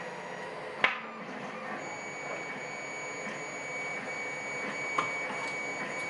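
Two short, sharp clicks about four seconds apart, the louder about a second in, as small metal lock parts are handled, over a steady room hum with a faint high whine.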